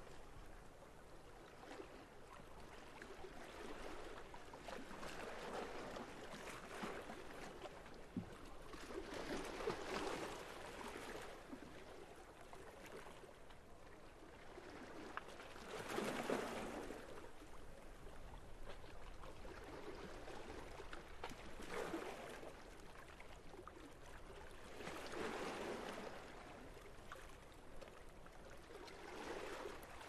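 Small sea waves lapping and washing against the waterfront. They come in soft swells every five or six seconds, the biggest about halfway through.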